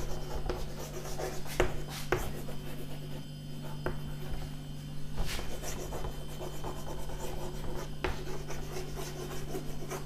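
Chalk writing on a chalkboard: soft scratching strokes with scattered sharp taps as letters are formed, over a steady low hum.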